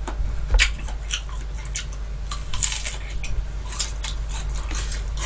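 Close-miked chewing of soft sweet persimmon: irregular wet mouth clicks and smacks, several a second, over a steady low hum.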